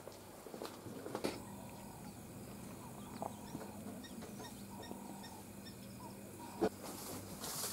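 Birds calling: a series of short, high chirps in the middle and a few faint, longer calls lower down. A few sharp clicks come through, the loudest one about two-thirds of the way in, over a steady low hum.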